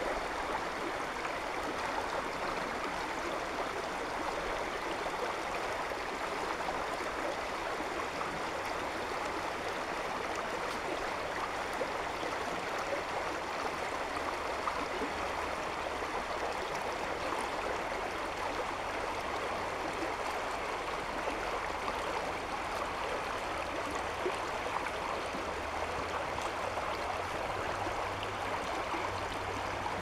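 Shallow spring snowmelt brook babbling steadily as it runs over its stony bed.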